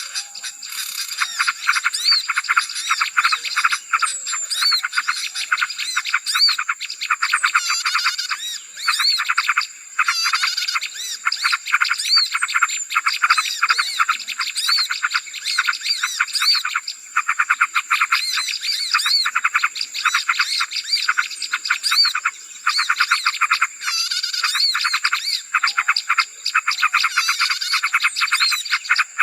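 Small-bird lure recording: a dense, noisy chorus of rapid chattering and trilling, with many short high chirps over it and a steady thin high whine underneath.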